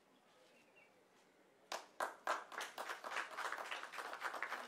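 A small group of people clapping, starting about one and a half seconds in.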